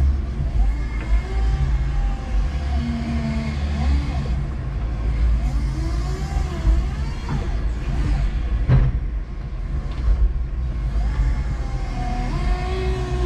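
5-ton electric forklift truck running, heard from its cab: a steady low rumble with a motor hum, and a single knock about nine seconds in.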